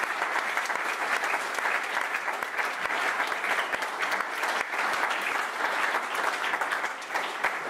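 Theatre audience applauding steadily, a dense, even patter of many hands clapping, with the cast on stage clapping along.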